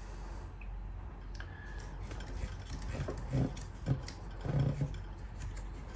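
Scattered small clicks and taps of hands handling the metal and plastic parts of an RC helicopter's rotor head and frame, with a few heavier soft knocks in the middle.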